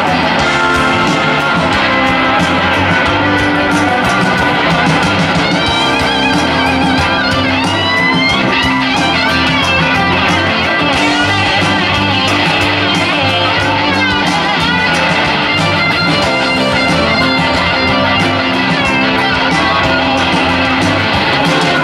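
Live rock band playing: an electric guitar solo on a Gibson SG, its notes gliding and wavering, over bass guitar and drums with cymbals.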